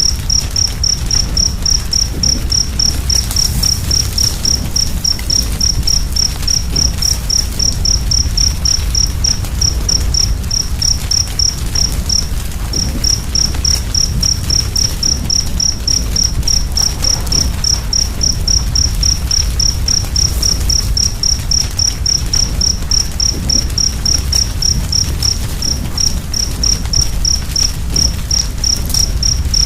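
Cricket chirping steadily, a high-pitched pulse about four times a second with one short break near the middle, over a steady low rumble.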